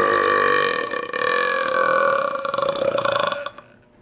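A person's long, loud belch, one continuous burp that ends about three and a half seconds in.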